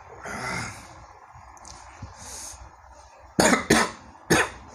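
A man coughing three times in quick succession into his fist, after a heavy breath out about half a second in. He is choking on the very bitter melon juice he has just gulped down.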